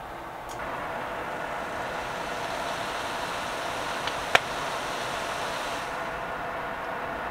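Tofu and vegetable filling cooking in a stainless steel pan, a steady hiss, with a single sharp knock about four seconds in, as the wooden spoon strikes the pan.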